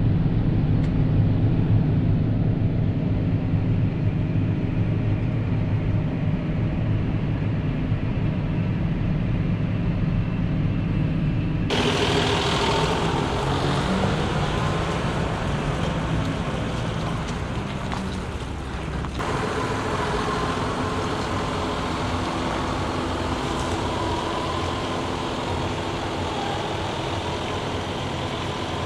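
Heavy diesel farm machinery running steadily under load, with the sound changing abruptly twice, about twelve and nineteen seconds in.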